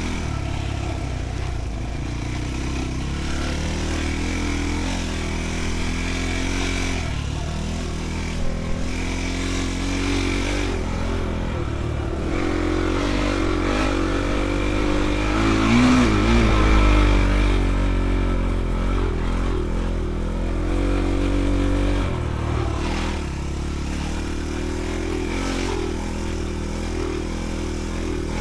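Enduro motorcycle engine running while riding off-road, its pitch rising and falling with the throttle, loudest about sixteen seconds in.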